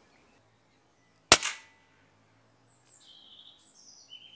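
A single shot from a silenced Daystate Red Wolf pre-charged air rifle about a second in: one sharp crack with a short tail. Small birds chirp faintly after it.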